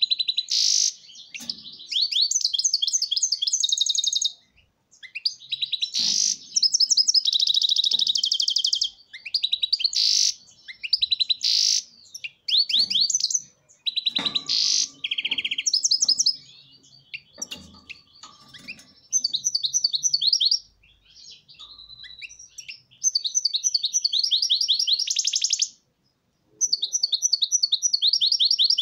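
Caged European goldfinch singing: phrases of fast, bright twittering trills a few seconds long, broken by short pauses.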